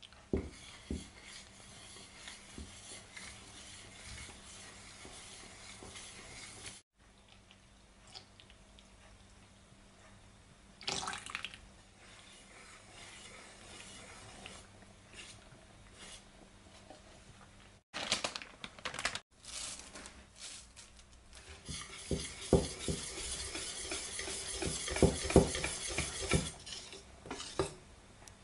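Wire whisk beating a thin rice-flour and coconut-milk batter in a stainless-steel bowl: wet sloshing with the wires clinking and scraping against the metal. The clinking is busiest and loudest in the last few seconds.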